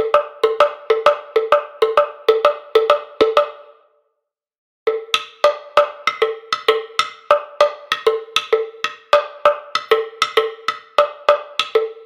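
Sampled krin, a West African wooden slit drum, from Native Instruments' West Africa Kontakt library, playing a fast rhythmic pattern of pitched wooden strikes, about four to five a second. The pattern stops for about a second a little past a quarter of the way in, then starts again.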